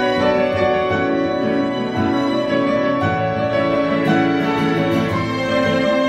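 Grand piano playing together with a small string ensemble of violins and cello, the bowed strings holding long sustained notes over the piano in a calm classical-style piece.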